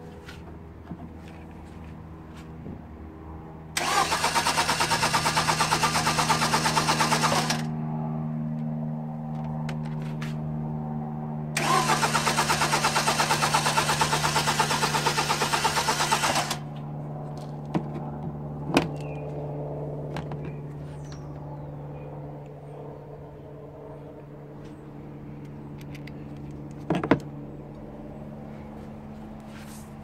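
Starter motor of a Toyota VVT-i engine cranking the engine, worked from a remote starter push-button: two spells of about four to five seconds each, with a fast even pulsing. Two sharp knocks follow later.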